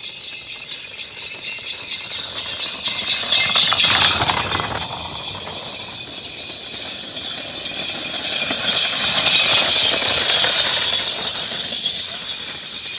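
Racing water buffalo pairs pulling carts pass one after another, their bells jingling and their hooves and cart wheels clattering on the dirt track. The sound swells about four seconds in and again from about nine to eleven seconds.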